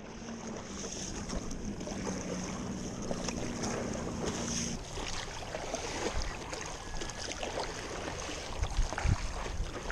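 Stand-up paddleboard being paddled across a lake: water washing and lapping against the board and paddle, with wind on the microphone and a few short splashes from paddle strokes. A faint low hum, a distant motor, stops about five seconds in.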